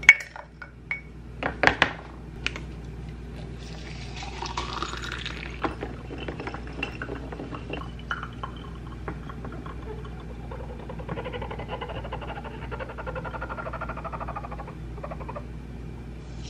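Coffee being made in an AeroPress: a few clicks and knocks as it is handled, hot water poured in with a rising filling sound about four seconds in, then a long steady hiss as the plunger is pressed down and the coffee drains into the mug.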